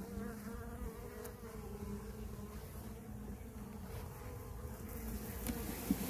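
A mass of honey bees buzzing on the frames of an opened hive: a steady, even hum.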